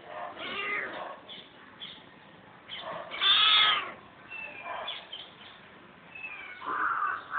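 Cats meowing while kittens play-wrestle: several short calls, with one longer, louder meow about three seconds in.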